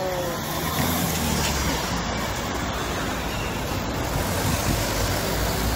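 City street traffic noise: a steady hum of vehicles, with a low engine rumble setting in about a second in.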